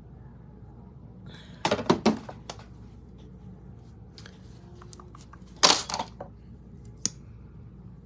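Clicks and knocks of small objects being handled and set down, in a cluster about two seconds in and another about six seconds in, with a few lighter ticks between.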